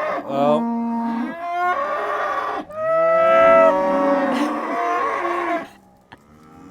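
Several Highland cattle mooing loudly in long, overlapping calls at different pitches, demanding to be fed; the calls stop about six seconds in.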